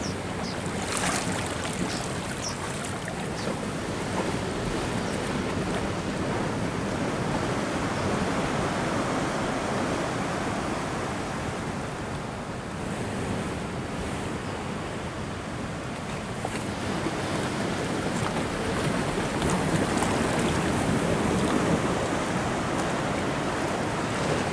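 Steady wash of the sea with wind buffeting the microphone, a few faint clicks about a second in.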